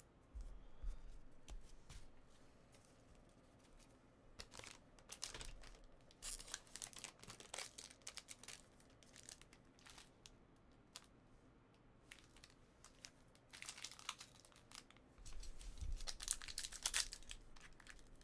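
Trading-card pack wrappers being torn open and crinkled, with cards handled. The sound is faint, in short bursts of rustling and clicking separated by quieter stretches.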